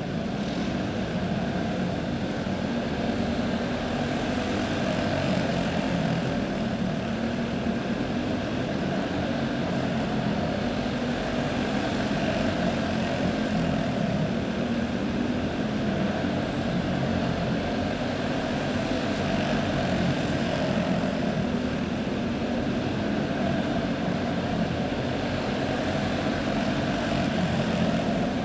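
Several dirt racing karts' single-cylinder clone engines running hard together in a pack, a steady buzzing drone that swells and dips slightly as the karts circle the track, heard in an indoor arena.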